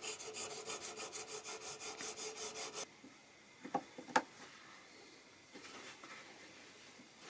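A metal file scraping a brass nut blank in a vise, in quick even strokes at about five a second, which stop just before the three-second mark. About a second later come two light clicks, half a second apart.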